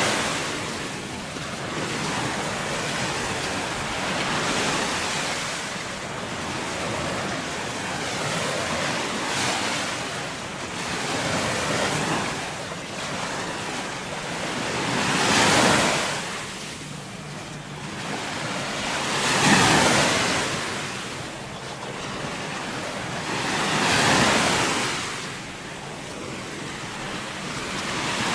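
Small Gulf of Mexico waves breaking and washing up the beach. The rushing surf swells and fades every few seconds, loudest in three surges during the later half.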